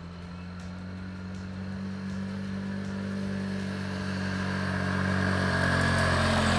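Vespa scooter's engine running at a steady cruising speed, growing louder as it approaches and passes close near the end.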